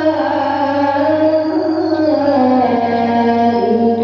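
A boy qori reciting the Quran in melodic tilawah style, holding long ornamented notes that glide slowly down in pitch.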